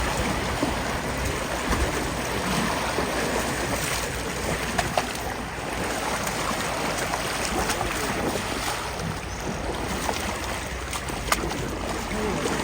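Steady rushing of river water outdoors, with a couple of short knocks about five and eleven seconds in.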